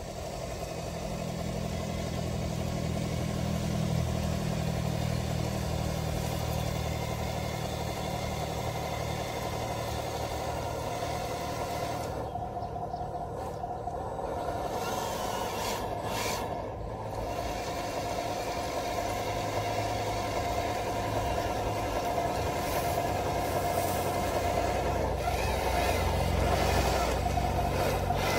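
Engine of a radio-controlled Caterpillar D9 crawler model running steadily as the model crawls along towing a loaded log trailer, growing a little louder near the end.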